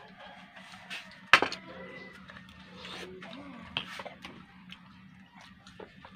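A sharp clack of tableware set down on the table about a second in, followed by lighter scattered clicks and taps of dishes and chopsticks, over a low steady hum.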